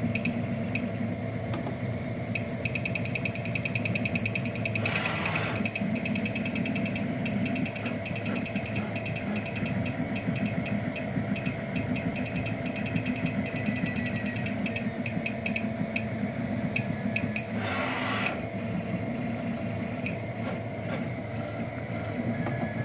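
Monoprice Select V2 (Prusa i3-style) 3D printer running a print: a steady hum with rapid, stuttering buzzes from the stepper motors as the print head moves. Two brief hissing swishes come about five seconds in and again near eighteen seconds.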